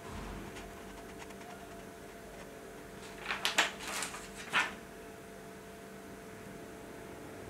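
A page of a spiral-bound yellow notepad being flipped over: a short run of crisp paper rustles about three seconds in, lasting around a second and a half, over a steady low room hum.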